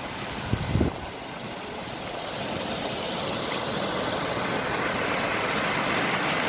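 Rushing water of a waterfall in spate after days of rain: a steady rush that grows louder as it is approached. A few low thumps come just under a second in.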